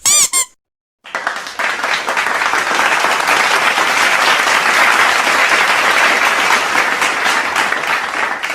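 A brief high squeak, then a crowd applauding for about eight seconds, starting suddenly and fading out near the end.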